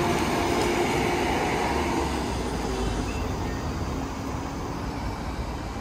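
Road traffic at a city junction: a steady rumble of passing vehicles that slowly fades.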